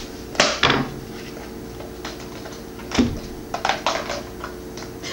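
Plastic parts of a Toilet Trouble toy toilet clicking and knocking against each other as they are handled and fitted together: a few separate sharp knocks, then a quicker cluster of clicks near the end.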